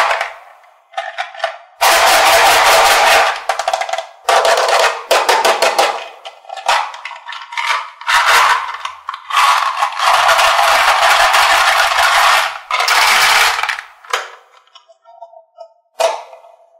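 Loud rattling in about six bursts, each one to two and a half seconds long, made of fast clicks, with short gaps between them.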